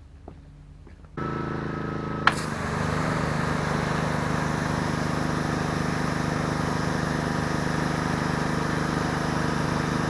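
A pressure washer starts running about a second in. After a sharp click a moment later, the wand begins spraying and water hisses steadily over the machine's even running. This is a test of the wand freshly fitted with a new O-ring.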